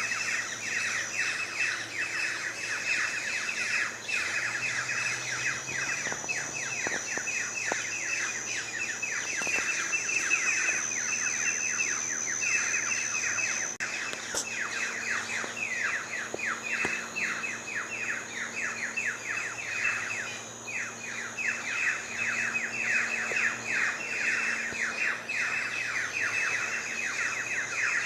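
A dense chorus of birds chirping, many rapid, short, falling calls overlapping without a break, with a thin steady high-pitched tone above them.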